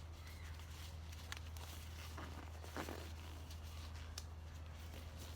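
Faint handling noises, a few light clicks and rustles, over a steady low hum.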